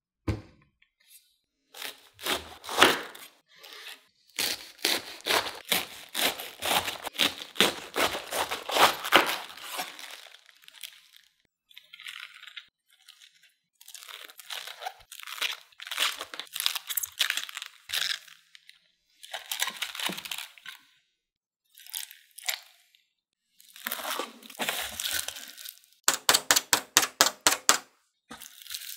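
Crisp fresh cabbage leaves being snapped and peeled off the head in several bouts of cracking and tearing. Near the end there is a quick, even run of about a dozen sharp crackles.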